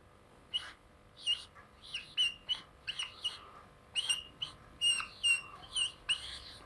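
Marker squeaking on a whiteboard during handwriting: a run of short, high squeaks and scratches, one per pen stroke, many holding a brief steady pitch.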